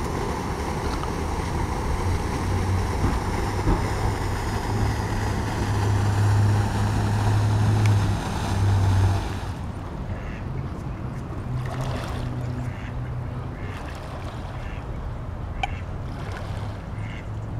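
Steady outdoor noise of wind rumbling on the microphone over a fountain's spray, cutting off suddenly about halfway through. After that, a quieter bed of lapping water with a few short duck and goose calls now and then.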